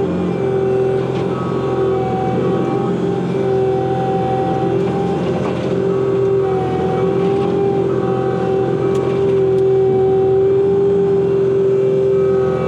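Bobcat T86 compact track loader running steadily: a diesel engine with a strong held tone, wavering only slightly in pitch, heard from inside the cab.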